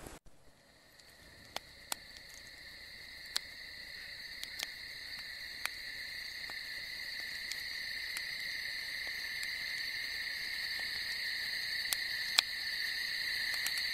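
A steady, unbroken high-pitched night chorus that fades in and grows louder, with the sharp scattered pops of a campfire crackling through it, the loudest pop near the end.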